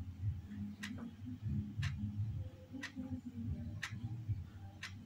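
A clock ticking about once a second: five sharp single ticks over a low, uneven background rumble.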